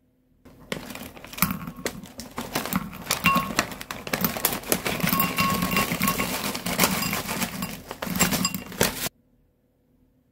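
Foil-lined snack bag crinkling and rustling as puffed-rice and peanut clusters are poured out, the pieces clicking and tapping against a glass bowl. It starts about half a second in and stops abruptly near the end.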